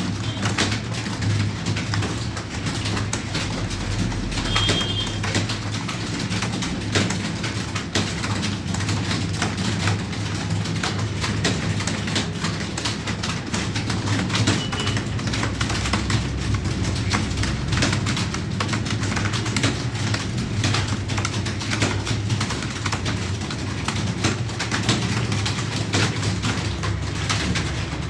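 Birds cooing over a steady low hum, with faint scattered clicks and a couple of brief high chirps.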